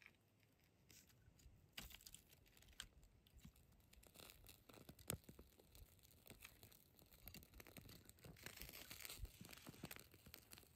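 Kindling and split wood catching fire: faint crackling with short sharp snaps, starting sparse and growing denser as the flames take hold, one louder snap about halfway through.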